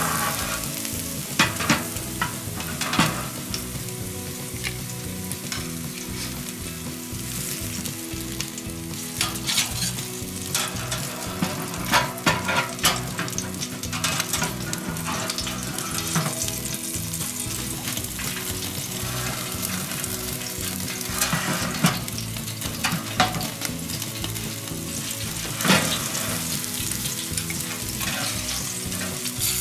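T-bone steak sizzling under the glowing burner of a gas top-heat steak grill, its fat crackling with irregular sharp pops over a steady hiss.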